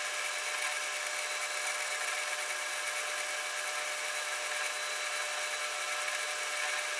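South Bend lathe running steadily while facing off the end of a piece of round steel stock. The cut gives a steady hiss with a few constant tones.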